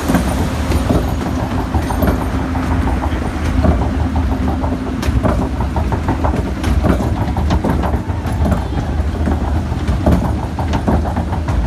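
Arrow Dynamics log flume lift hill: the conveyor belt carrying the log boat uphill over its rollers, a steady low rumble with irregular clattering clicks. A steady hum runs under it and stops about halfway through.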